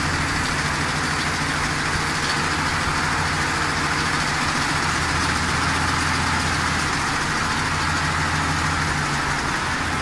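Ford 5.4-litre three-valve V8 running steadily in drive with a light load, both VCT solenoids plugged in, with a slight ticking that is being diagnosed as a possible bad cam phaser.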